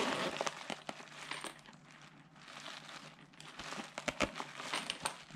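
A fabric pen case handled and unzipped: rustling of the fabric and the rasp of the zipper, with scattered small clicks of the zipper pull.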